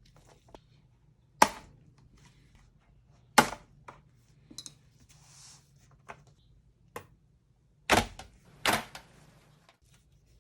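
Sharp, irregular clicks and taps of small tools and laptop parts being handled on a hard surface during a laptop teardown: four loud ones and a few faint ones.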